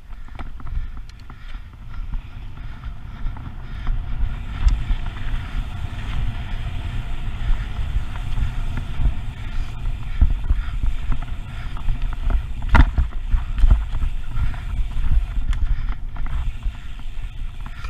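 Wind buffeting the microphone over the tyres of a carbon 29er mountain bike rolling on a dirt trail, with scattered clicks and rattles as it goes over bumps and one harder knock about two-thirds of the way through.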